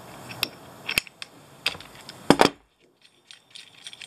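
Sharp metallic clicks from a socket ratchet turning the blade bolt of a Dremel Saw-Max to loosen it, with a louder double knock a little past two seconds in.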